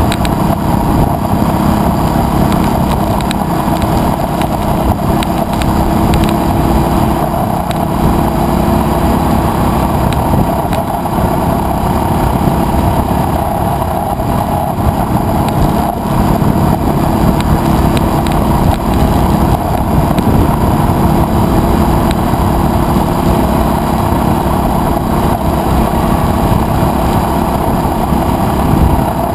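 Adventure motorcycle's engine running steadily at a cruise, with road and wind noise.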